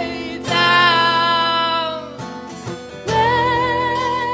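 Live band: a woman singing long, wavering notes over strummed acoustic guitar and bass, dropping quieter for a moment a little past halfway before the next sung line comes in.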